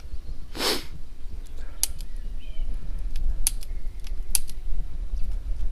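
Sharp metallic clicks, three of them about a second apart, from a snub-nose revolver being worked and checked after the wrong ammunition damaged it. A short whoosh comes about half a second in, over a low wind rumble.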